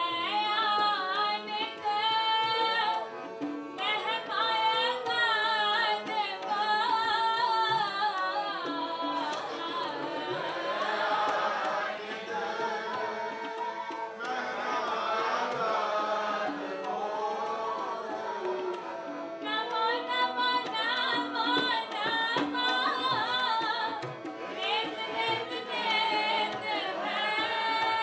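Sikh kirtan: a woman sings the lead line over harmonium and tabla. In the middle stretch several voices sing the line back together before she takes up the lead again.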